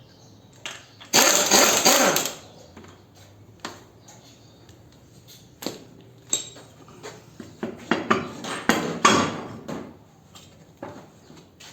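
Pneumatic impact wrench rattling in two loud bursts, about a second in and again near eight seconds in, as the car's wheel lug nuts are undone, with metallic clinks and knocks from tools and parts between.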